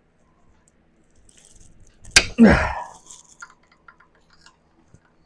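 A fuel injector on a Hummer H2 engine breaking free of its bore: a sharp pop about two seconds in, then a short squeak that falls in pitch as it comes loose, with light scraping and clicking around it.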